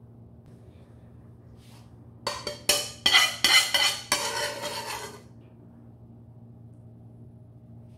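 A metal spoon clinking and scraping against a ceramic serving plate in a quick cluster of strokes lasting about three seconds, starting about two seconds in. Otherwise only a low steady hum.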